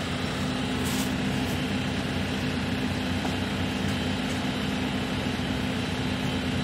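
JCB Loadall telehandler's diesel engine running steadily with an even low drone.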